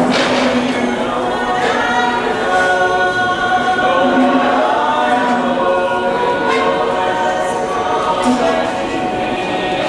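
Group of carolers singing a Christmas carol together, many voices in harmony holding long notes.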